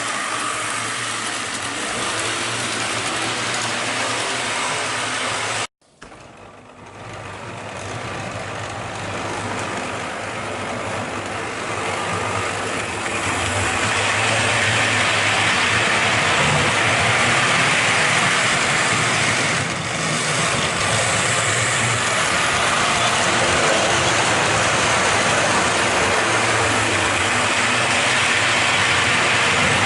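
Model train running on the layout: a steady whir of the locomotive's small electric motor and wheels on the rails. It cuts out abruptly about six seconds in, then returns and grows louder before holding steady.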